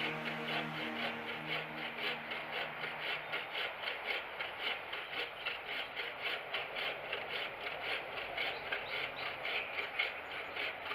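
Bow saw fitted with a 24-inch Bahco crosscut blade sawing through wood in quick, even back-and-forth strokes.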